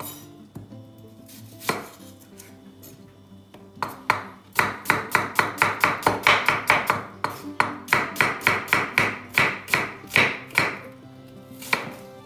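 Chef's knife slicing an onion on a wooden cutting board: two single cuts, then a quick run of cuts at about four a second for several seconds, and one last cut near the end. Faint background music underneath.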